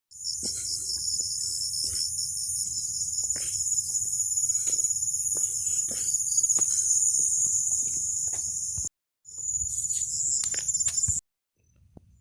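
Loud, steady shrill chorus of insects with a fast pulsing buzz, over a low rumble and faint scattered clicks. It cuts out abruptly for a moment about nine seconds in, and again near the end.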